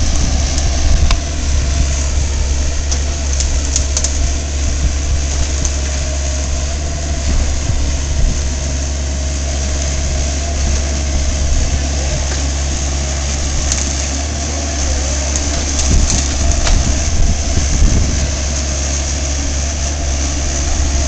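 Compact excavator's diesel engine running steadily with a deep, constant hum while its arm pushes against a tree trunk, with scattered sharp knocks and cracks, a few louder ones about three-quarters of the way through.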